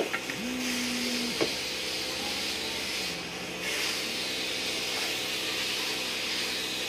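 Spray gun hissing as wood finish is sprayed onto the swing cot, with a short break about three seconds in before it starts again.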